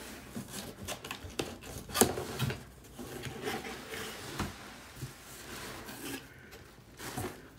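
Cardboard shipping box being opened and its packaging handled: irregular scraping and rustling of cardboard and paper, with a sharp snap about two seconds in and another click a little after four seconds.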